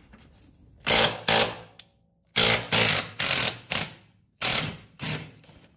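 Metal parts and tools being handled: a series of sharp clanks and knocks, some in quick succession around the middle.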